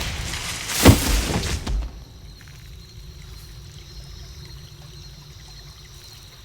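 Film sound effect: a loud noisy rush with a sharp hit about a second in, which stops abruptly after about two seconds and leaves a quieter, steady low hum with a faint high whine.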